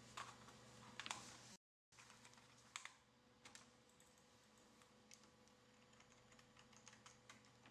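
Faint computer keyboard typing: scattered, irregular keystrokes over a low steady hum, cutting out completely for a moment about one and a half seconds in.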